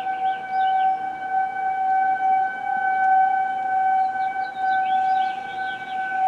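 Outdoor tornado warning siren sounding one steady, held tone, its loudness wavering slightly, during a scheduled siren test.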